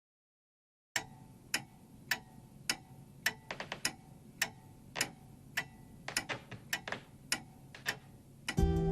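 A clock ticking, a bit under two ticks a second with a few fainter extra ticks in between, opening the song recording. Music with strummed guitar comes in near the end.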